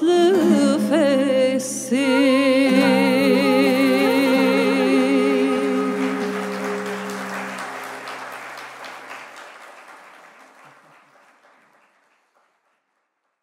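Final held note of a live Turkish folk song: a female voice sings with vibrato over sustained lower notes from saz and kamança, ending about five seconds in. Audience applause follows and fades out.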